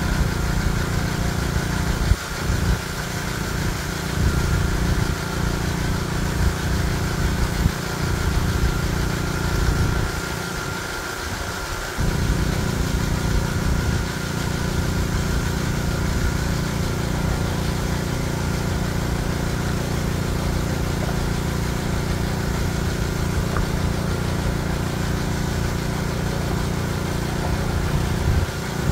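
An engine running steadily at a constant speed, dipping briefly about ten seconds in.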